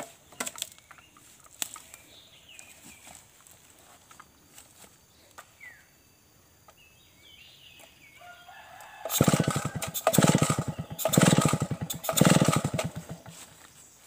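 Stihl 070 two-stroke chainsaw being started: after a quiet stretch with faint bird chirps, the engine fires about nine seconds in and runs in four loud sputtering bursts about a second apart, then drops away.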